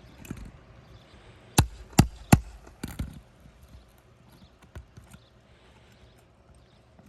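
Sharp knocks of a hand tool working under roof shingles to pry them loose: three quick strikes about half a second apart, a fourth just after, then two fainter taps. The shingles are brittle enough that the tool cracks and tears them.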